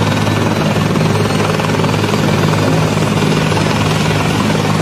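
Helicopter running on the ground, its engine and rotor making a loud, steady noise that does not change.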